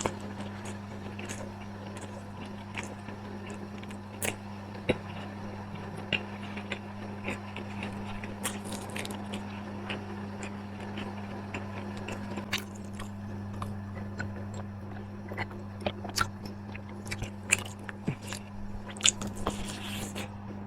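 Close-miked eating: irregular crunching bites and chewing, with a steady low hum underneath.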